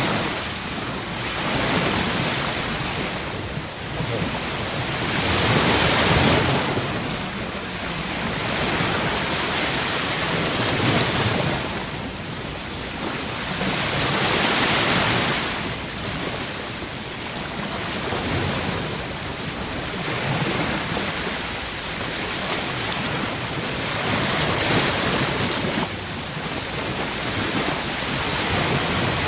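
Sea waves breaking and washing in, a steady rush that swells and falls back about every five seconds.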